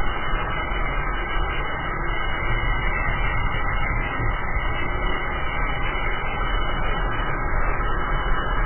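Steady rush of wind buffeting the camera microphone, with road rumble from a drift trike's wheels rolling fast downhill on asphalt.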